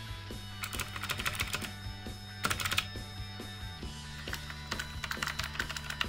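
Typing on a mechanical keyboard fitted with a cast resin spacebar: three quick flurries of key clicks over background music.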